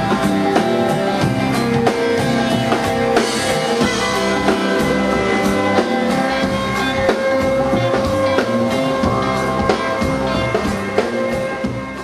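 Band music with guitar and a steady drumbeat, fading out near the end.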